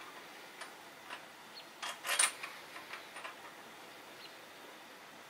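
Scattered light clicks and taps of engine parts and bolts being handled, with a short louder clatter about two seconds in.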